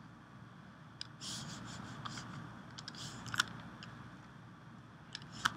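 Scattered sharp computer clicks as images are picked out for placing, with faint rustling between them; the two loudest clicks come about three and a half and five and a half seconds in.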